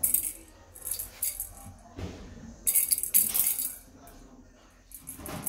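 Small rattle ball on a feather wand cat toy jingling and rattling as it is shaken and batted by a cat, in several short bursts with quieter pauses between.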